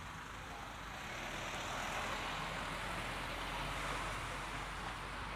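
A car passing on a wet street: its tyre hiss swells about a second in, holds for a few seconds, then fades near the end.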